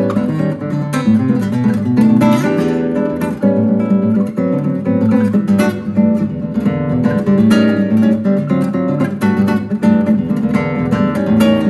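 Recorded acoustic guitar music with steady strummed chords and plucked notes, without vocals, played back through a pair of LSA Signature 80 hi-fi loudspeakers under test.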